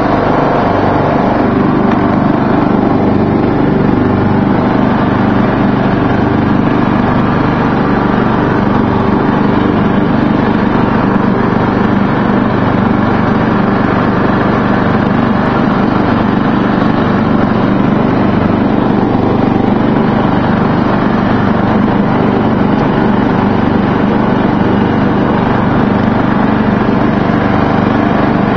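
Murray riding lawn mower's engine running steadily while the mower drives across the lawn cutting grass.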